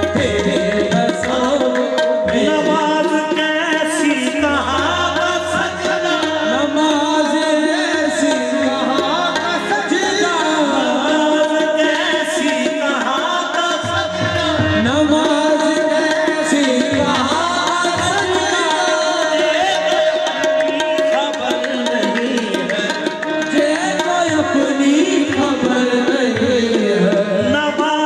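Qawwali music: tabla drumming under a melody line with singing.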